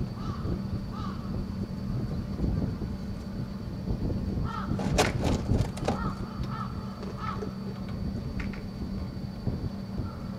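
Short animal calls repeated about every half second in a few runs. A cluster of sharp clicks or knocks about five seconds in is the loudest part, over a steady low hum.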